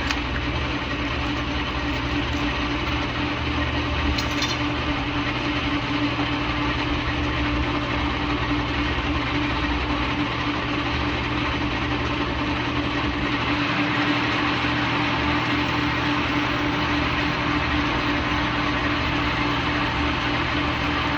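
Lehmann engine lathe running steadily during a single-point threading job: a constant motor and gear hum with a steady whir.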